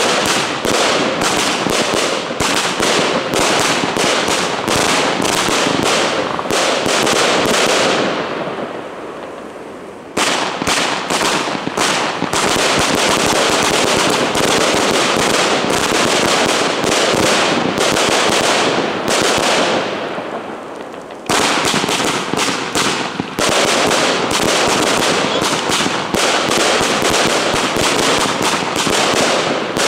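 Two Pyroland Air Force One firework batteries (gold cakes) firing at the same time, a dense, unbroken crackle of shots. The firing fades twice, about eight and about nineteen seconds in, then starts again abruptly a couple of seconds later each time.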